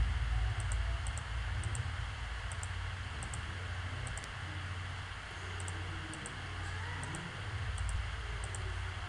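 Computer mouse clicking, about ten short double ticks (press and release) spaced irregularly a second or so apart, over a steady low hum.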